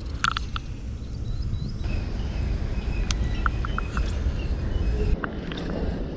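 Wind buffeting the microphone: a steady low rumble, with a few short clicks and several brief high chirps about halfway through.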